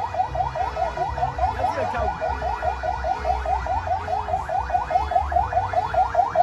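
Electronic vehicle siren in a fast yelp: short rising sweeps repeating about five times a second, with a low rumble underneath.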